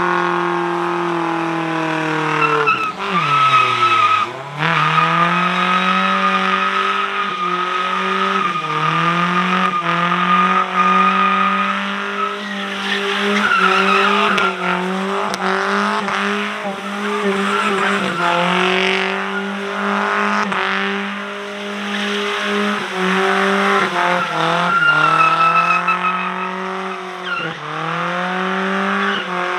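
Vehicle engine running at a steady pitch while driving. About three seconds in, the pitch drops sharply and climbs back within a second or two, as when the throttle is lifted or the gear is changed. Smaller dips follow now and then.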